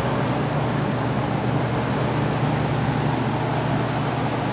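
Paint booth exhaust fan running: a steady rush of air with a constant low hum underneath, kept going to clear the spray fumes.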